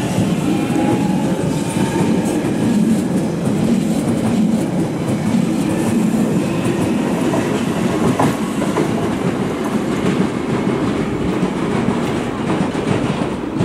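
London Underground 1996 Tube Stock train pulling out of the platform: a steady, loud rumble of steel wheels on the rails with scattered clicks as the cars pass.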